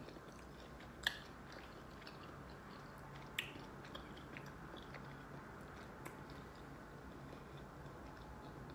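Faint close-up chewing of food with the mouth closed, with a few short soft clicks, the sharpest about a second in and another about three and a half seconds in, over a faint steady low hum.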